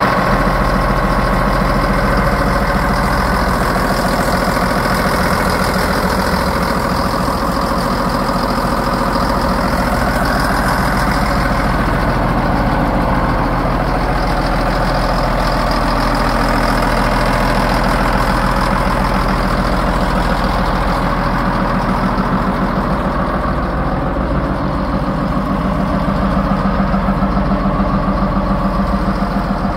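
Caterpillar Challenger 65 tractor's six-cylinder CAT 3306 turbo diesel idling steadily, heard close to the open engine compartment.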